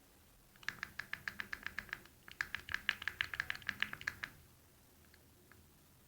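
A small plastic camera button clicked rapidly, about ten clicks a second, in two runs with a short pause between. This is typical of mashing a GoPro Hero2's power button when the switch is faulty and the camera won't turn on.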